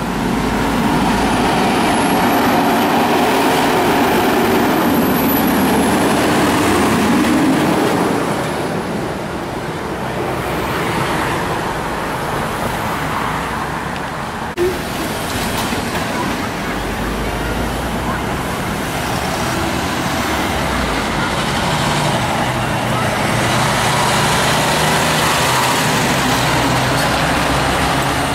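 Fire trucks' diesel engines, a pumper and then a tower ladder, running in slow street traffic with cars passing, and no siren. A short knock about halfway.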